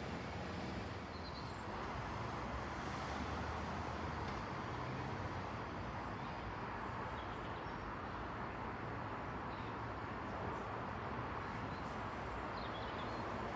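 Steady, faint rumble and hiss of a diesel passenger train approaching in the distance, with a few faint high chirps.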